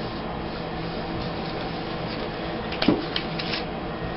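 Photos and paper being handled on a tabletop over a steady background hiss, with one sharp rustle about three seconds in and a few light ticks just after.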